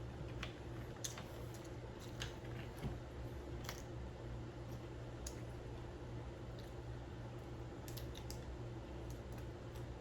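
Seafood-boil shells cracking and snapping as they are broken open, a handful of sharp cracks scattered irregularly over a low steady hum.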